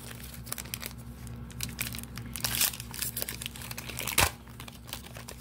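Donruss basketball card pack's glossy wrapper crinkling as it is torn and peeled back by hand, with one sharp click a little after four seconds in.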